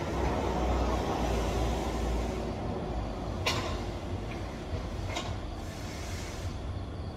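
Stacked plastic crates being shifted on a trolley during unloading: a rolling rumble over the first few seconds, then sharp clattering knocks, the loudest about three and a half seconds in and another about five seconds in, over a steady low hum.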